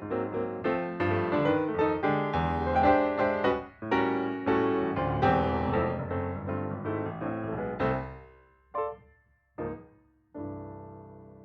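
Background piano music: a busy run of notes, then two short chords and a final chord left to ring and fade out.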